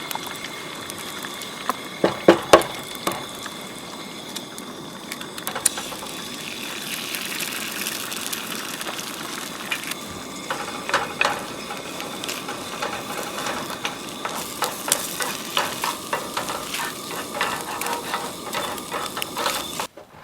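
Food frying in a pan at camp: a steady sizzle full of crackles, with a few loud knocks of a utensil against the pan a couple of seconds in. The sizzle cuts off abruptly near the end.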